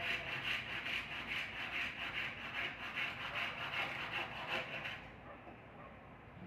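Wood being worked by hand in quick, even back-and-forth scraping strokes, which stop about five seconds in.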